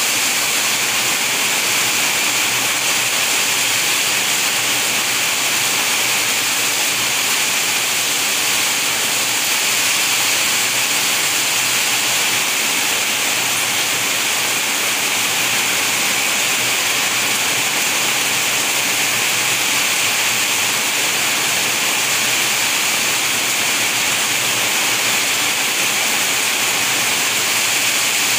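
Rain falling steadily, a dense, even hiss with no breaks, separate drops or thunder.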